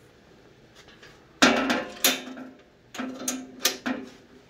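Steel parts of a Woodland Mills HM122 band sawmill head, the adjustable blade guard and its housing, clanking and scraping as they are worked by hand. The sound comes in two bouts of about a second each, with a low ringing tone under the scraping and a few sharp knocks.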